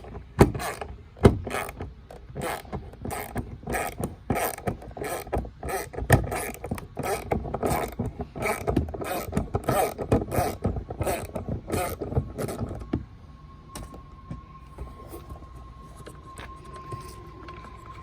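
Socket ratchet clicking in quick, irregular strokes as the side-mirror mounting nuts of a Toyota Camry door are backed off. It stops about thirteen seconds in, leaving a faint steady tone.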